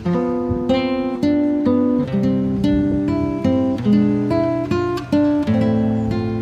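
Background music: a melody of plucked notes, each struck sharply and dying away, about two new notes a second.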